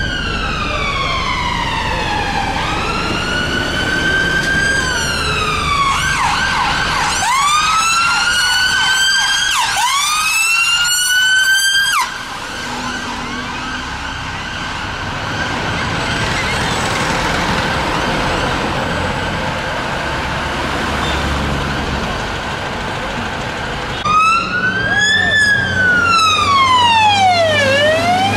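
Ambulance sirens in city traffic: a slow wail sweeping down and up, switching to a fast yelp, which cuts off suddenly about twelve seconds in, leaving traffic noise with a faint steady siren tone. Near the end another ambulance's siren starts up with a slow wail.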